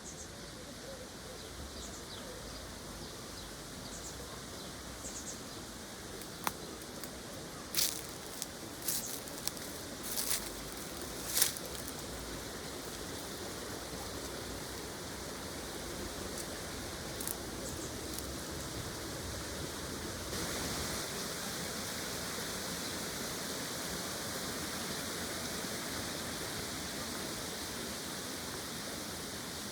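Steady outdoor background hiss, with a few sharp clicks or knocks between about eight and twelve seconds in. A brighter hiss comes in suddenly about twenty seconds in and holds to the end.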